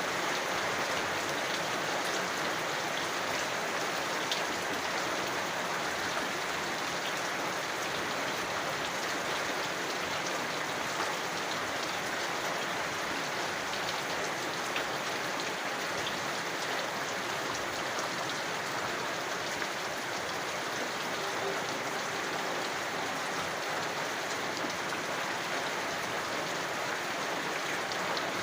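Steady rain falling in an even hiss, with scattered individual drops ticking on a surface.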